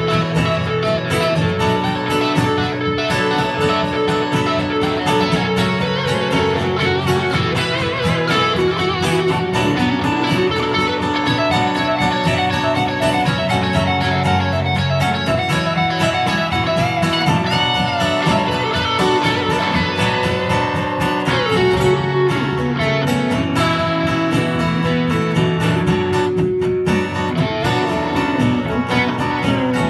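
Live instrumental guitar music: an electric guitar and an acoustic guitar playing together.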